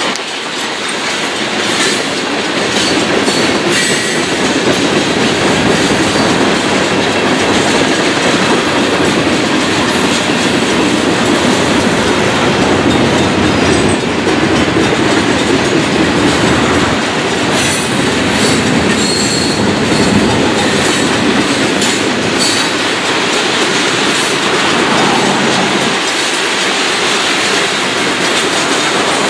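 Freight train of tank cars and covered hoppers rolling past close by: a steady rumble and rattle of steel wheels on rail, with scattered clicks and knocks.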